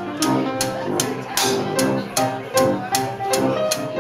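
Live small jazz band playing: an upright piano, tuba and trombone over a steady washboard-and-cymbal beat of two to three hits a second.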